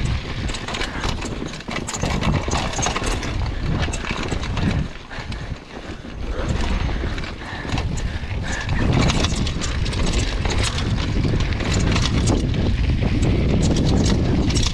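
Mountain bike descending a dirt singletrack: tyres on dirt and stones, with the bike rattling and clattering over bumps and wind rumbling on the microphone. It eases off briefly about five seconds in, then grows louder and steadier from about nine seconds on.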